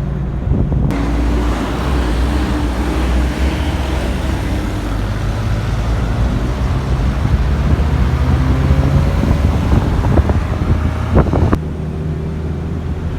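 Car on the move: a steady low engine hum with road and wind noise. A louder hissing rush comes in suddenly about a second in and cuts off near the end.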